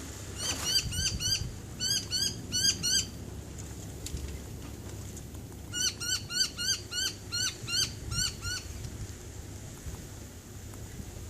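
An animal calling in two bouts of short, high, rising-and-falling whistled notes, about four a second, over a low steady rumble.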